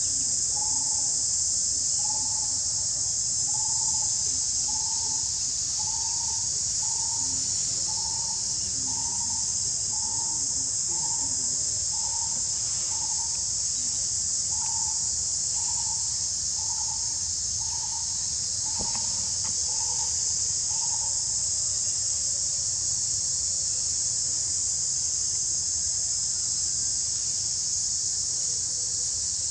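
Loud, steady, high-pitched drone of insects, with a bird repeating one short note about once a second until roughly two-thirds of the way through.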